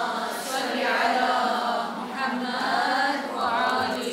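A hall of women and girls reciting salawat in unison: a group chant of blessings on the Prophet Muhammad and his family, given in answer to a call for salawat for the acceptance of the prayer.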